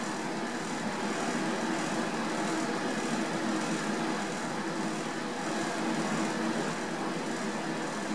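Steady whir of grow-tent air-moving fans: an even hiss with a faint low hum, unchanging throughout.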